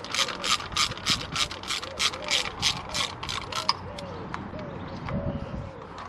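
Hand ratchet clicking in quick back-and-forth strokes, about three a second, as it runs thermostat housing bolts up to touch. The clicking stops about four seconds in, leaving a few light clicks.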